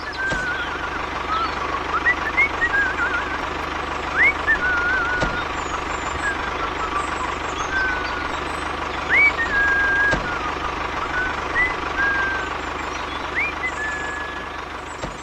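A steady engine-like running noise, with short whistled calls over it every second or two, each sweeping up and then holding a flat or warbling note, like bird calls.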